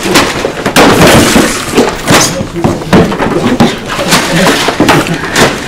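Crash and clatter of dropped things hitting a hard floor, with many quick knocks and scrapes. The biggest crash comes about a second in.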